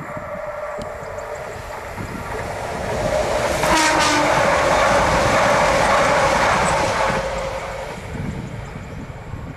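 Renfe Cercanías Civia electric commuter train passing at speed. The sound of its wheels and motors swells as it nears, is loudest for about three seconds as the carriages go by, then fades as it runs off.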